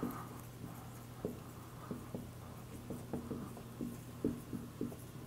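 Dry-erase marker writing on a whiteboard: faint short squeaks and taps of the pen strokes at an uneven pace.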